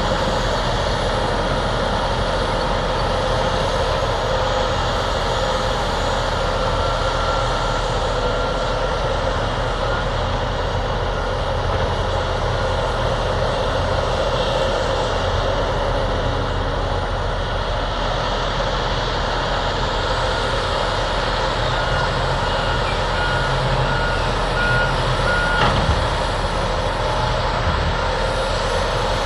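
Heavy diesel earthmoving machinery running steadily. A reversing alarm beeps about twice a second for a few seconds near the end.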